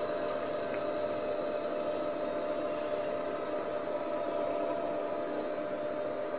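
Steady running noise of an Amstrad PC2086 computer: an even hum with a few held whining tones, from its cooling fan and spinning 30 MB RLL hard disk.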